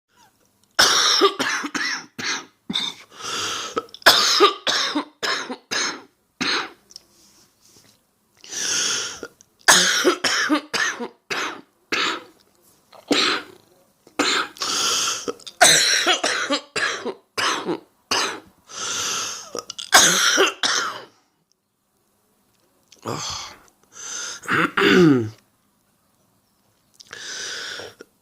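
A woman with a heavy cold coughing in repeated fits of short, rapid coughs, with throat clearing in between. Pauses of a second or two fall between the fits.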